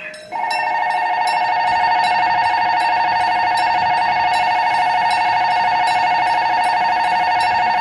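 Railway level-crossing warning bell ringing continuously, a steady high ringing that starts a moment in and stops at the very end, warning that a train is about to pass.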